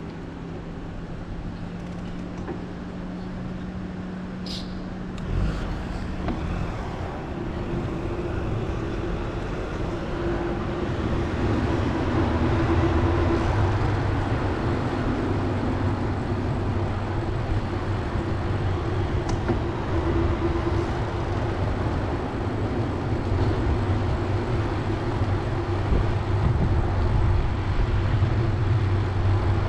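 Street and traffic noise heard from a moving bicycle: a steady low hum for the first five seconds, a bump about five seconds in, then a rumble that grows gradually louder.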